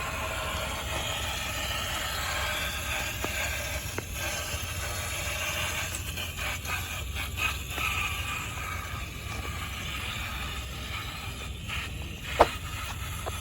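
1/6 scale RC crawler driving over rocky ground: a steady motor hum under tyres scraping and crunching on rock, with scattered clicks and one sharp knock near the end.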